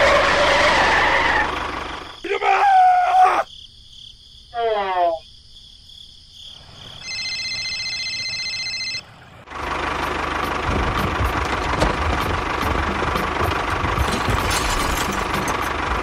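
A dubbed-in soundtrack of sound effects: short squeaky gliding cartoon-style calls in the first few seconds, a steady electronic phone ring tone for about two seconds, then from about halfway a tractor engine sound effect running steadily.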